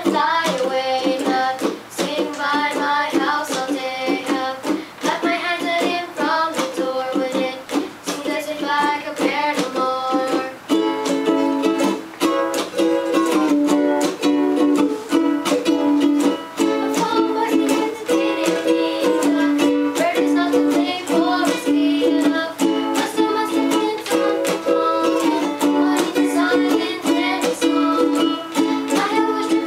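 Ukuleles strummed in a steady rhythm while young voices sing along, the chords and voices filling out and growing fuller about a third of the way in.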